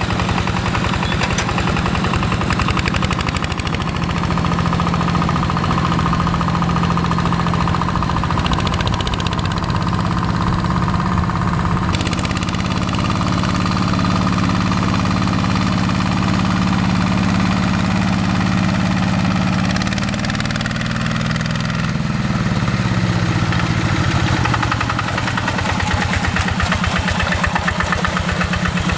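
Single-cylinder Yanmar diesel engine of a Quick G1000 two-wheel hand tractor, running steadily under load. About two-thirds through the engine speed drops, then picks up again a few seconds later.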